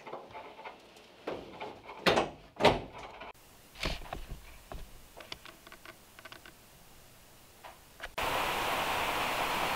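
Hollow knocks and thumps of a car seat being handled and set into a stripped car body, then a few light clicks. About eight seconds in, a loud, steady rushing noise starts abruptly.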